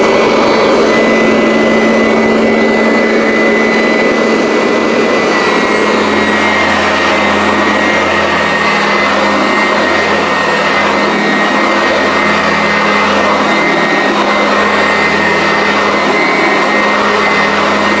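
Sanitaire SC899 commercial upright vacuum cleaner running steadily: a loud rush of air from the suction fan with a steady high whine and a low hum.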